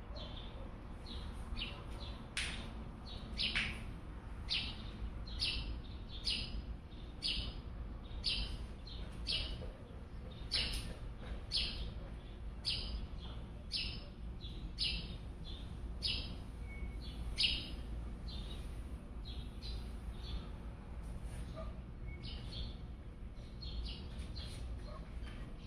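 A bird chirping over and over, short chirps at roughly two a second, over a low steady rumble.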